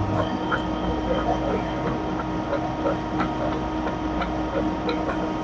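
FBD frozen-beverage (Slurpee) machine running with a steady hum, dotted with small irregular clicks and gurgles.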